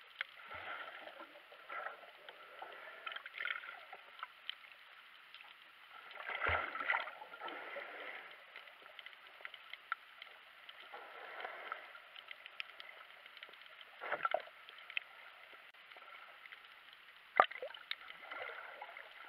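Muffled underwater water noise with bubbles and gurgling. It swells now and then and carries a few sharp clicks and knocks, the loudest near the end.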